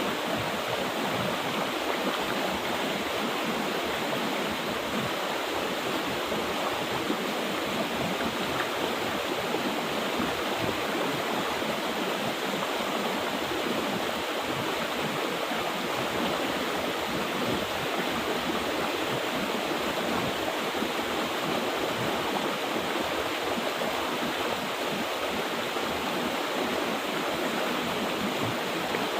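Mountain river water rushing steadily over rocks, an even unbroken flow.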